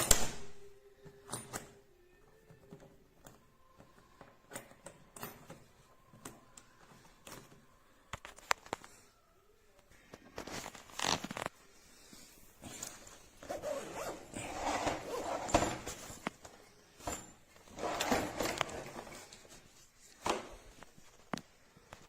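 Suitcase zipper being drawn along the case in several long pulls in the second half, among scattered clicks and knocks of the hard-shell case being handled.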